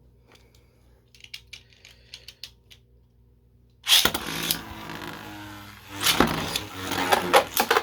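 A few faint clicks, then about four seconds in two 3D-printed Beyblade tops are launched with string launchers into a stadium. They whir as they spin, then clack sharply and rapidly as they collide.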